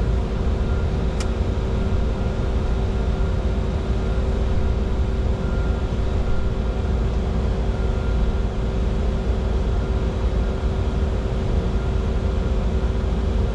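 Steady flight-deck noise of a Bombardier Challenger 605 jet in descent: an even rumble of airflow and engines with a faint steady hum on top. A single short click about a second in.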